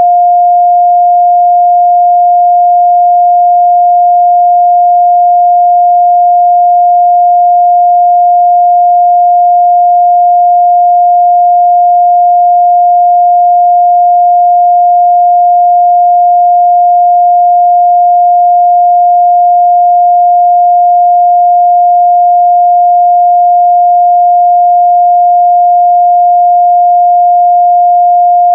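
A steady, unbroken 706 Hz sine-wave test tone, a single pure pitch held at a constant loud level.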